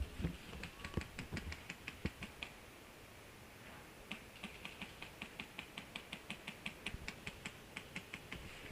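A rapid, fairly even series of sharp clicks, about five a second, in two runs with a short lull near the middle.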